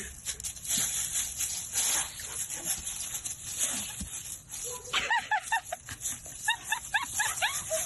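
A small animal's quick string of short, high-pitched cries, starting about five seconds in, over a steady hiss with scattered clicks.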